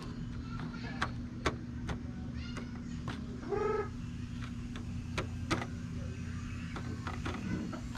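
Light clicks and taps of plastic seedling trays being handled, with one short high-pitched call about three and a half seconds in. A steady low hum runs underneath.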